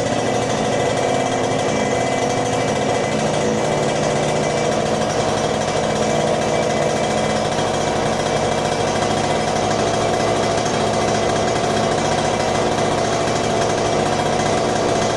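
Yamaha TZM 150's two-stroke single-cylinder engine running steadily, held at an even speed with no change in pitch. It is being kept running to warm up after its first start in ten years.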